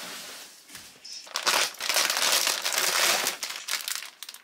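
Plastic packaging crinkling and rustling as it is handled and unwrapped by hand, loudest in the middle few seconds.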